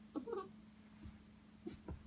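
Young Newfypoo puppy giving two short, high whimpers close together, with a few faint softer sounds near the end.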